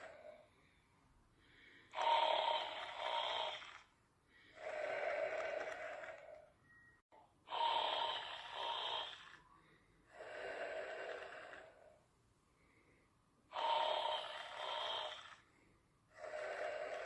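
Slow, regular snoring: three breath cycles, each a louder snore followed by a softer one, about one cycle every five to six seconds with short quiet pauses between breaths.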